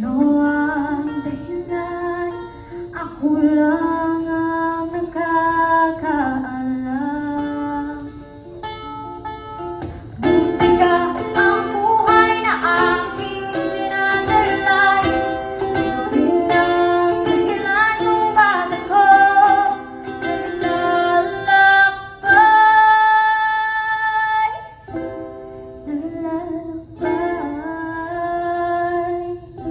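A young female singer singing a song into a microphone while strumming her own ukulele accompaniment, holding one long note a little past the middle.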